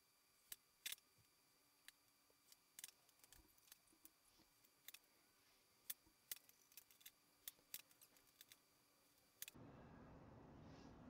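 Near silence: faint room tone with scattered, irregular sharp clicks. A steady low hiss comes in about nine and a half seconds in.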